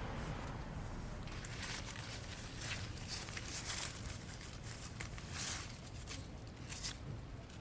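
Soil and plant stems rustling and scraping under handling, in a series of short scratchy bursts, as a flowering peach cutting is worked out of its soil.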